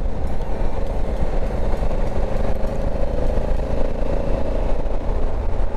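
Honda Africa Twin 1100's parallel-twin engine running steadily at road speed, with steady wind and road noise from riding.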